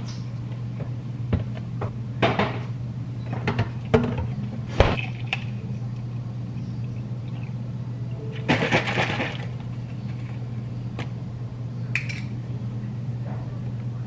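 Kitchen handling sounds: refrigerator door and plastic bottles clicking and knocking, then bottled cold brew coffee poured into a plastic cup for about a second, near the middle, over a steady low hum.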